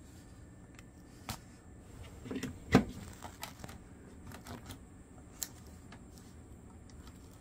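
Cables being plugged into an Android TV box and its power adapter: a handful of light clicks and knocks from plastic connectors and handling, the loudest a sharp click nearly three seconds in.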